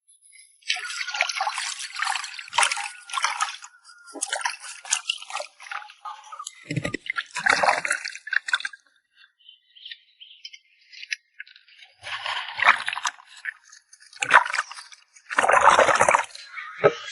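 Water splashing and trickling in irregular bursts of a second or two, with short pauses between.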